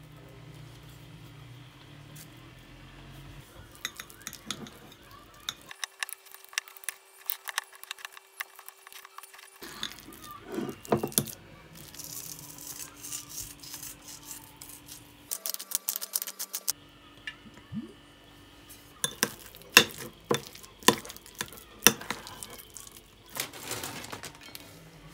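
Kitchen clatter: utensils, dishes and glass clinking and tapping in scattered bursts over a faint steady hum.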